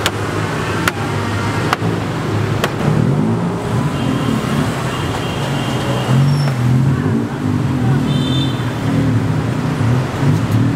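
Street traffic: the engines of passing vehicles running steadily, with a few sharp knocks in the first three seconds.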